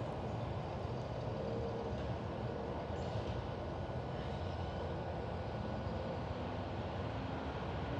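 A recycling truck's diesel engine running at a distance: a steady low rumble.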